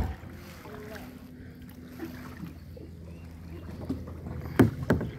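A canoe out on the water with a steady low rumble of wind and water. There is a sharp knock at the very start and a few more near the end, hard hits on the canoe.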